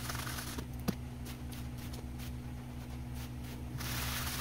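Sand being sifted through a window-screen mesh into a plastic-lined trash can: a scratchy rustle with a few small ticks, growing louder near the end, over a steady low hum.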